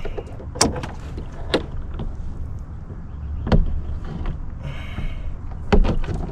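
Several sharp knocks and clunks from gear being handled in a canoe, against its hull and gunwale, over a steady low rumble of wind on the microphone.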